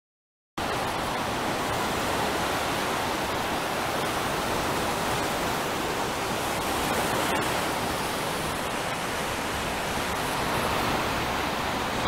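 Ocean surf: a steady, even rush of waves washing in, starting about half a second in.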